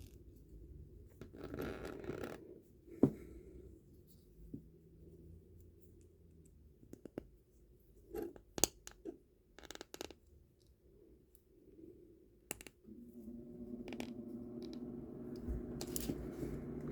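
Small plastic Lego pieces clicking as they are handled and pressed together: a sharp click about three seconds in, a cluster of clicks a few seconds later, and another shortly after.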